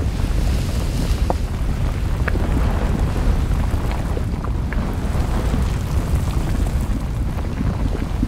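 Volcano sound effect laid over the footage: a steady deep rumble with scattered small crackles, standing in for slowly moving lava.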